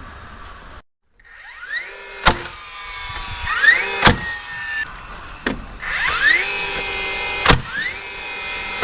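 A power tool's electric motor whining up to speed and running steadily, several times over, with sharp knocks in between.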